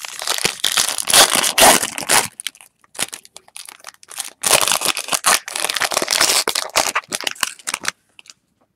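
Foil trading-card pack wrapper being torn open and crumpled by hand: loud crinkling in two stretches, the first in the opening couple of seconds and the second from about halfway to near the end, with scattered crackles between.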